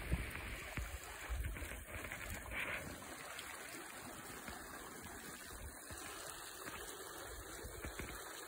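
Small mountain creek trickling faintly, with low wind rumble on the microphone.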